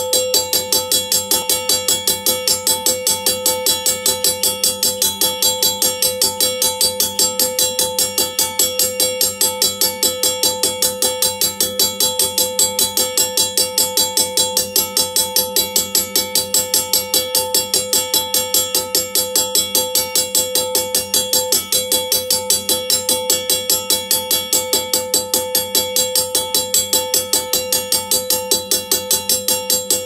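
Safetran mechanical railroad crossing bell, electrically driven from a 12 V battery, ringing continuously: its striker hits the gong in rapid, evenly spaced blows, about four a second, and each ring carries on under the next.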